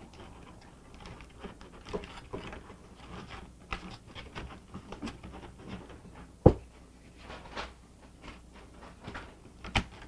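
Glue-backed aluminum foil crinkling in irregular small crackles as hands press and shape it around an ornament, with one sharp knock a little past the middle.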